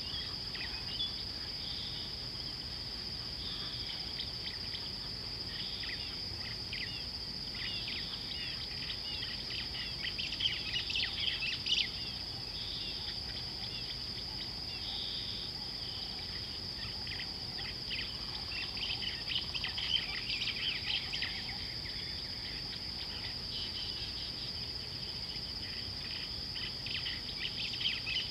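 Steady high-pitched insect drone, like crickets or cicadas, with small birds chirping over it in scattered bursts, busiest about ten seconds in, again around twenty seconds, and near the end.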